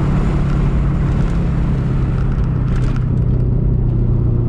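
Subaru BRZ's flat-four engine with catless headers and a cat-back exhaust, running on a stage 2+ tune and heard from inside the cabin while driving at steady revs: a low, even drone.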